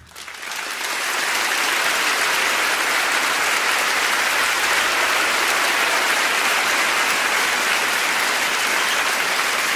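Crowd applauding: dense, steady clapping that swells over the first second.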